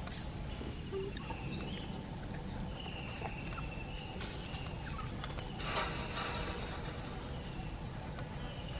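Outdoor ambience: a steady low rumble with a few faint, short high chirps, and a brief rustling burst about six seconds in.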